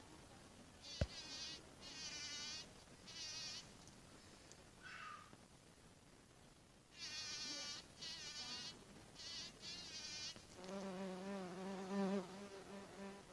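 Insects: a series of short, high chirping bursts, each under a second, with pauses between. For the last few seconds a buzzing insect hums close by with a steady low drone that wavers in pitch.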